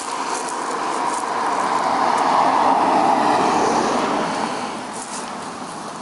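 A car passing on an asphalt road: tyre and engine noise swells up, is loudest about three seconds in, then fades away.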